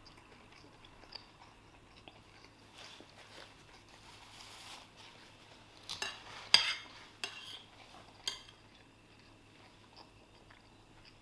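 Cutlery clinking and scraping against a plate while eating, with a few sharp clinks a little past the middle.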